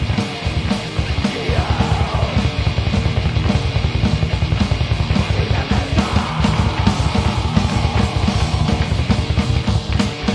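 Heavy metal band playing live: distorted electric guitars, bass guitar and a drum kit, with a fast, steady bass drum beat driving the song.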